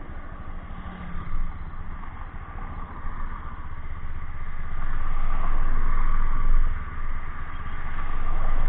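Motor scooter and road traffic noise with heavy wind buffeting on the microphone. It swells louder about halfway through, dips briefly, then swells again near the end.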